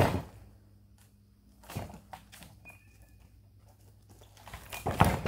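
Sawn wooden boards knocking and thudding as they are handled and set down on the bed of a portable sawmill: one loud thud at the start, a softer knock about two seconds in, and a quick run of knocks just before the end.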